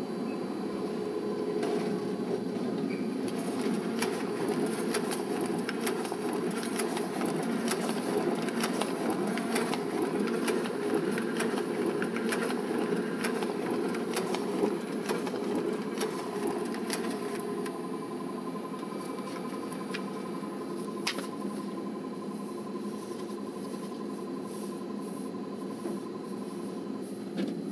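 Large office printer running through a print job: a steady, fast mechanical whirring that carries on and stops near the end, with a faint steady high hum joining in the second half.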